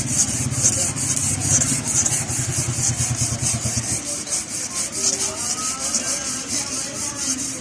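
Rapid, even back-and-forth rubbing strokes, several a second, abrading metal by hand to clean up the seized crank of a Suzuki engine. A low hum underneath stops about halfway through.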